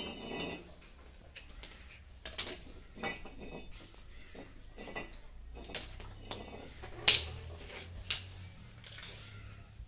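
Scattered light taps and clatter of a thin wooden stick and a small toy against a tiled floor, the sharpest knock about seven seconds in.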